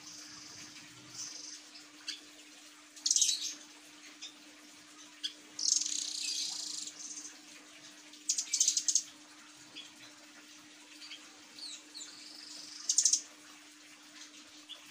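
Caged blue nuthatch giving short, high, rapid trills, four loud bursts with thin high notes between, over a steady low hum.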